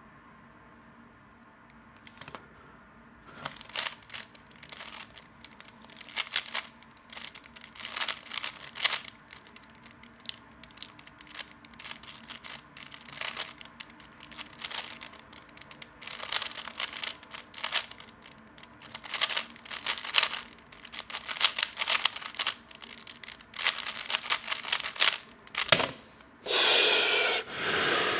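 A plastic 3x3 speedcube being turned fast in a solve: runs of rapid clacking turns with short pauses, lasting about 23 seconds. Near the end a louder rushing noise lasts about a second and a half.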